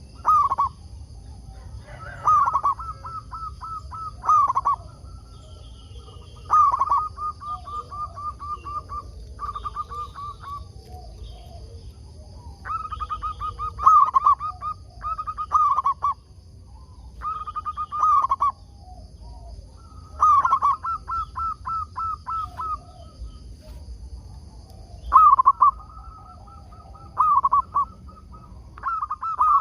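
Zebra dove (perkutut) cooing: repeated phrases, each a louder opening note followed by a quick run of short staccato coos, every few seconds.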